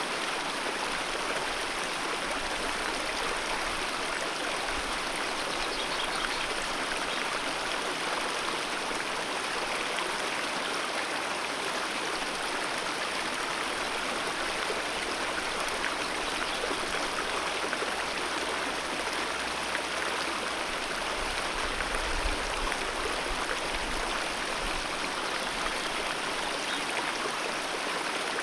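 Wild alpine mountain river flowing steadily, an even, unbroken wash of water noise.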